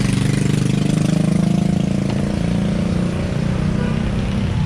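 A motor vehicle engine running steadily at low revs, a continuous low hum with a fast even pulsing.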